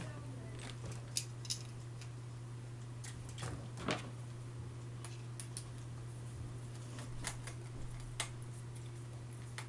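Scattered light metallic clicks and clinks as small screws are handled and driven into a metal mounting block with a screwdriver, over a steady low hum.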